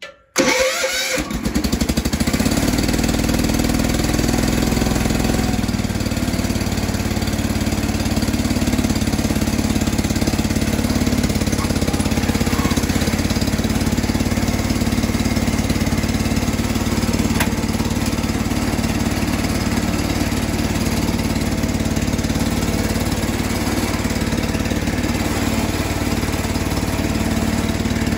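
Massey Ferguson 16 garden tractor engine cranking briefly and catching about a second in, then running steadily. The owner thinks its carburettor still needs fine tuning.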